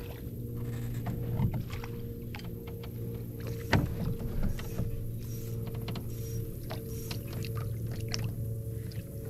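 A hooked fish splashing and thrashing at the water's surface as it is reeled toward the boat, with scattered sharp clicks and splashes, the loudest a little under four seconds in, over a steady low hum.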